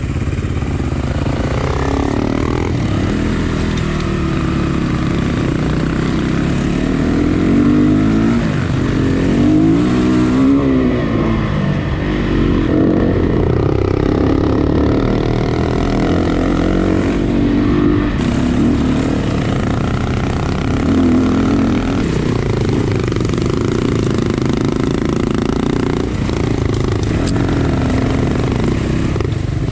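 Dirt bike engine running under load, its pitch rising and falling again and again as the throttle is opened and eased off.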